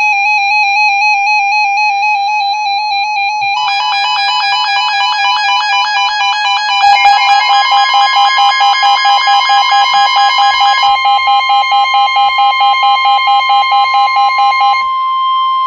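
Emergency Alert System weather alert tones, several electronic tones sounding over each other. One steady tone is joined by more tones about three and a half seconds in, and a rapid pulsing starts at about seven seconds. Near the end everything drops to a single steady tone just above 1 kHz, the weather radio's 1050 Hz warning alarm tone.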